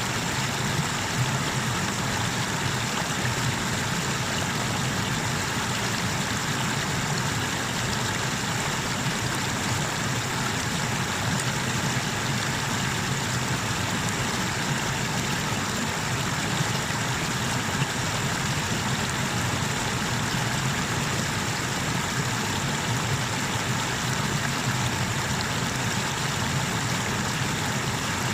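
Water pouring over a small river waterfall, a steady, unchanging rush.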